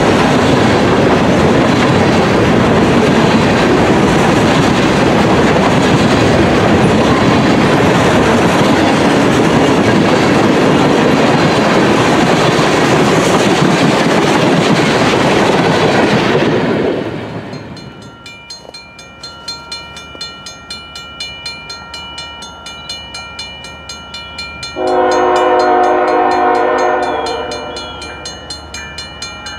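Freight cars, covered hoppers then tank cars, rolling past close by: a steady heavy rush of wheels on rail. It stops abruptly about 17 seconds in and gives way to a quieter scene, where a diesel locomotive's chime horn sounds once for about two and a half seconds, near the end.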